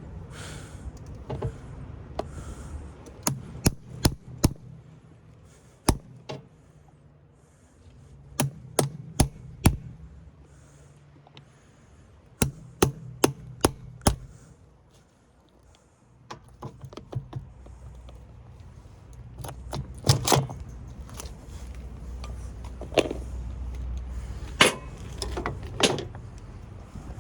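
A hand tool striking a forklift battery as pieces are knocked loose: sharp blows in quick bursts of four or five, with single strikes and pauses between.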